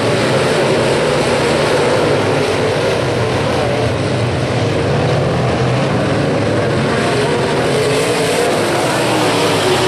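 A pack of UMP dirt modified race cars running their V8 engines hard around a dirt oval. The engine noise is loud, dense and continuous, and its pitch keeps rising and falling.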